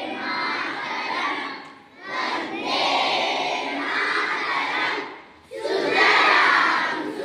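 Group of schoolchildren chanting in unison, loud and shouted, in phrases about two seconds long with short breaks between them.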